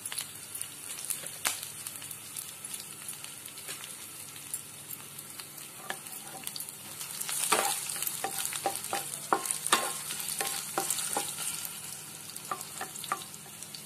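Cumin seeds and whole spices sizzling in hot mustard oil in a kadhai, stirred with a wooden spatula that scrapes and knocks against the pan. The knocks come thickest about halfway through.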